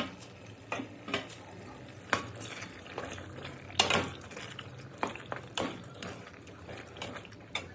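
A spoon stirring grilled lamb pieces into a simmering tomato stew in an aluminium pot, with irregular knocks and scrapes of the spoon against the pot, the sharpest about four seconds in, over a steady low hum.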